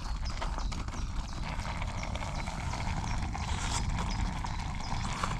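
Chopsticks tapping and clicking irregularly against a cooking pan while food is turned and checked, over a steady low background rumble.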